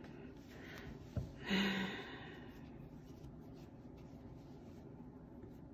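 Faint rustling of yarn and crocheted fabric being handled as the hat is turned over, with a click a little over a second in and a short breathy vocal sound just after it.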